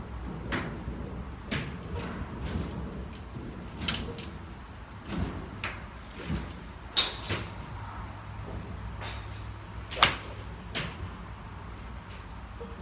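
Golf clubs striking balls: a string of sharp clicks of varying loudness, the loudest about seven and ten seconds in.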